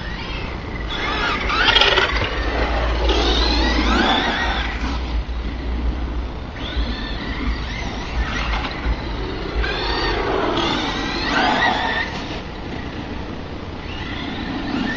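Whine of a Duratrax Evader EXT2 RC truck's brushless motor (Tacon 3930kv on an EzRun 35A ESC) and its gears, rising and falling in pitch as the truck accelerates and slows, several times over.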